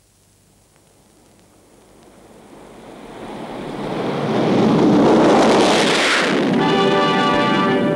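Three low-flying twin-engine propeller aircraft passing overhead: the engine noise swells over several seconds, peaks as they go over, then falls away. Orchestral music with brass comes in about six and a half seconds in.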